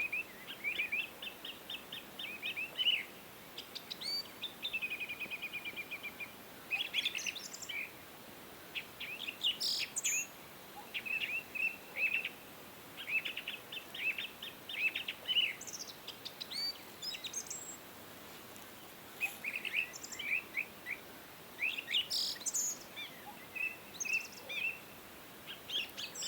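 Birds chirping and singing: quick repeated runs of short chirps, broken by occasional higher, sharper notes, over a faint steady hiss.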